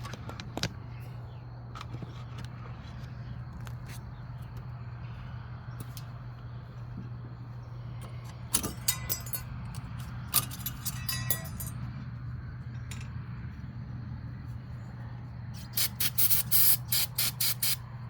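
Metal hand tools clinking and clicking against car parts, with a quick run of about ten sharp clicks near the end, over a steady low hum.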